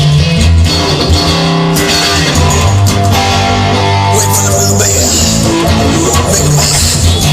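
Instrumental music led by guitar over a steady bass line, with no singing.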